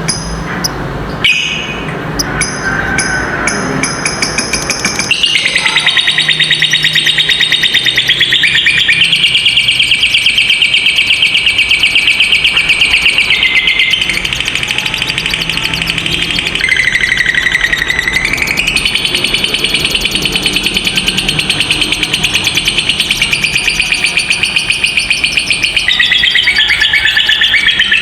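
Lovebird chirping, then from about five seconds in a lovebird's long unbroken rapid rattling trill, the 'ngekek panjang' that hobbyists prize. The trill shifts in pitch a few times.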